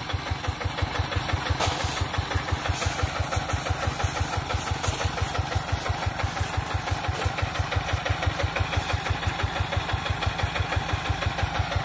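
The small engine of a homemade rice cutter built from a walk-behind hand tiller, idling with a steady, even chug.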